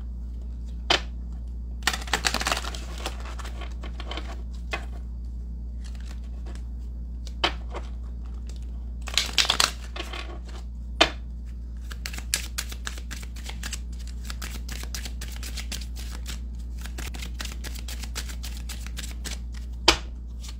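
A deck of oracle cards being shuffled by hand. There are scattered snaps and short riffles at first, then a fast, continuous run of card-edge flicks through the second half, over a steady low hum.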